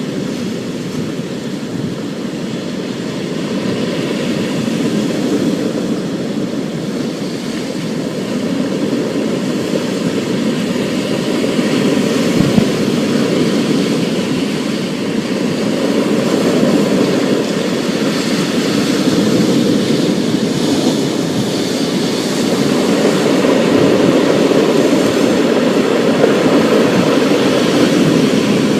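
Thunderstorm: steady rain hiss over a low, continuous rolling rumble, growing slowly louder.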